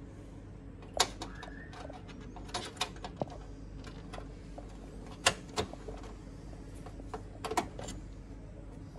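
Sharp clicks and knocks of plastic and metal parts as the retaining lock of the laser unit is fitted by hand inside a Fuji Xerox DocuCentre 2260 copier. There are about eight separate clicks, some in quick pairs, with the loudest about a second in and just past five seconds.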